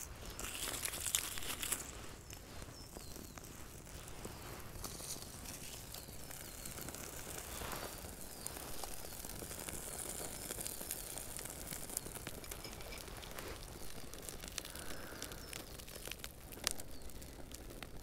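Birch bark tinder burning with a faint crackle and crinkle, with a few sharper snaps.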